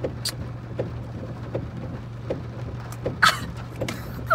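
Steady low hum in a car's cabin, with soft ticks repeating evenly about every three-quarters of a second. A louder short sharp sound comes about three seconds in.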